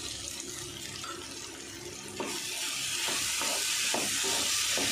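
A spoon stirring and scraping diced potatoes in a pan. A loud, steady hiss sets in about two seconds in, with knocks and scrapes over it.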